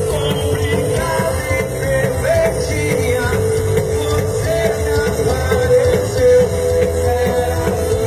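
Rock music playing at a steady, full level.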